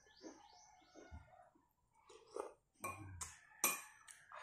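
Close mouth and lip smacks and clicks from eating by hand, with birds chirping in quick repeated descending notes early on. A rooster starts a long crow near the end.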